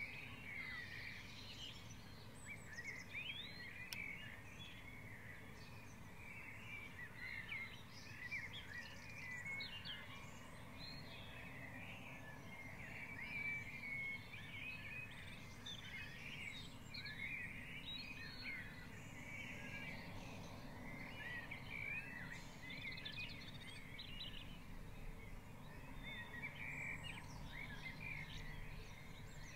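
Spring dawn chorus: many birds singing at once, their songs and calls overlapping without a break, over a low steady background rumble.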